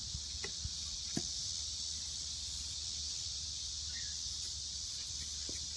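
Insect chorus droning steadily at a high pitch, with a couple of faint taps in the first second or so.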